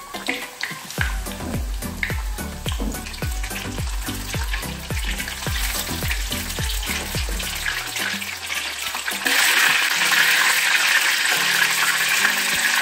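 Breaded fish fillets deep-frying in hot oil: a steady sizzle that gets much louder about nine seconds in, with background music underneath.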